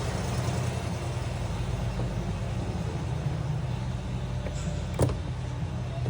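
A steady low mechanical hum, with a single sharp knock about five seconds in.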